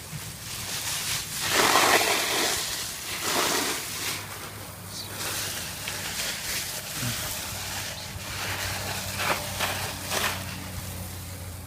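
Garden hose spray splashing onto wet ground and brush in uneven surges, loudest about two seconds in. A faint low steady hum joins in the second half.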